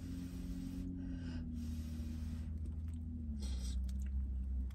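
A person blowing twice on a hot spoonful of chili to cool it, then a short slurp as the spoon goes into the mouth, over a steady low hum.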